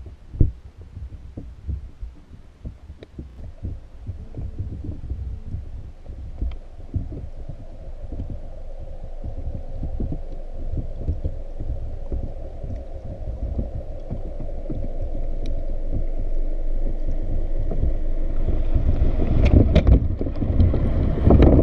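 Muffled underwater sound heard through a GoPro's waterproof housing inside a submerged pinfish trap: frequent low knocks and thumps, with a rushing water noise that grows steadily louder toward the end.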